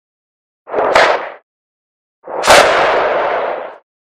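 Two firework shots from a 500-gram aerial repeater cake: a short one about a second in, then a longer one about halfway through that dies away over about a second and a half.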